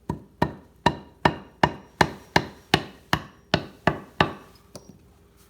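Steady, evenly spaced knocks, about three a second, striking through a rag onto a climbing-stick step to press an adhesive cloth stealth strip down. Each knock rings briefly. The knocks stop about four seconds in.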